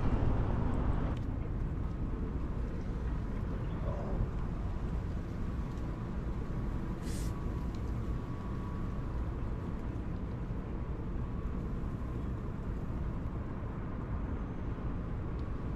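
Steady low rumble of wind and road noise while riding a bicycle along a road, with a brief hiss about seven seconds in.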